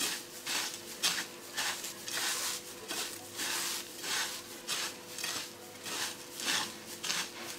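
Fingers rubbing and squeezing oiled coarse breadcrumbs and sesame seeds on a ceramic plate: a repeated scratchy rustle, about two to three strokes a second. A faint steady hum runs beneath.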